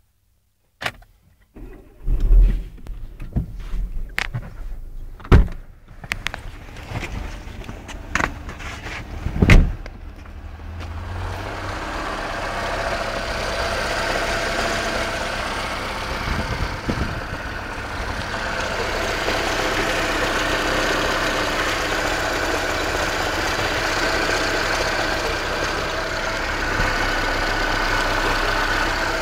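Several sharp knocks and clicks for the first ten seconds. Then a Renault Mégane's engine runs steadily with a thin whistle from the belt tensioner pulley.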